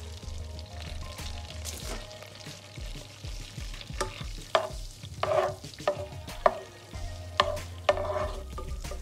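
Butter sizzling as it melts in a nonstick pan. From about four seconds in, a spatula stirs it, knocking and scraping against the pan several times, each knock ringing briefly.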